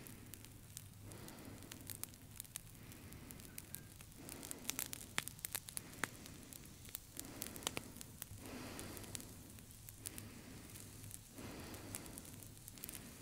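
Slow breaths swelling in and out about every three to four seconds, under a dense scatter of sharp crackling clicks.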